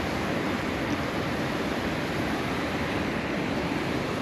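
Steady rush of water pouring through a lake spillway, an even, unbroken noise.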